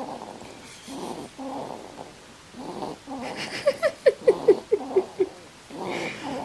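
Baby snoring in his sleep: short rasping snores about twice a second. About three and a half seconds in comes a quick run of about seven short squeaks falling in pitch, the loudest sound here.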